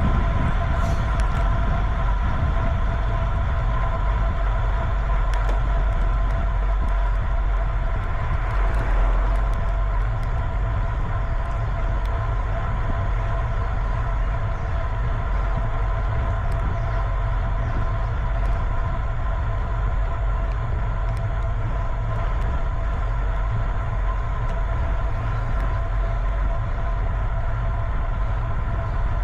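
Steady rumble of wind and road noise from riding along a road, with a constant whine held through it.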